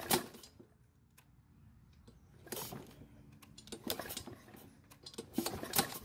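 Troy-Bilt XP mower's Briggs & Stratton engine being pull-started about four times, each pull a short rattling burst as the engine turns over without catching. The engine kicks back and snatches the pull handle back, the sign of a sheared flywheel key (or valve lash out of tolerance) throwing the ignition timing early.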